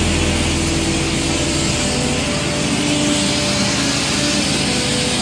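Abrasive blasting in a blast booth: a steady, loud hiss of compressed air and grit from the blast nozzle playing over a VW Type 3 front wing.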